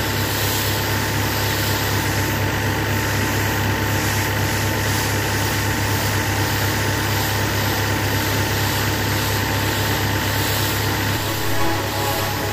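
Massey Ferguson tractor engine running steadily at a constant speed, powering a pressure washer.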